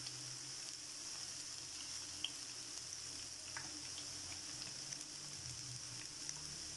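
Pakoras frying in hot oil: a steady gentle sizzle with scattered small crackles and pops.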